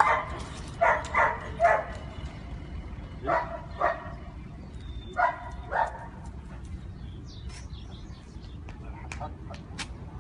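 A dog barking in short groups of two or three, about eight barks over the first six seconds, then stopping; a few faint clicks follow near the end.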